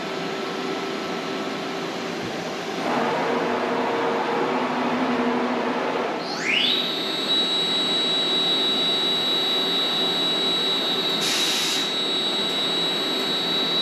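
ShopSabre IS-M 408 CNC router running its spindle warm-up cycle. A machine noise rises about three seconds in. A few seconds later the spindle spins up with a rising whine and then holds a steady high-pitched whine. There is a brief hiss a little before the end.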